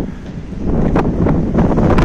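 Gusty wind buffeting the microphone with a low rumble, easing for a moment and then picking up again about half a second in: the wind rising ahead of an approaching thunderstorm.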